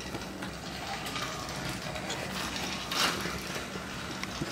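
TrackMaster Percy battery-powered toy engine running along plastic track: its small electric motor and gears whirring steadily, with a sharp click about three seconds in.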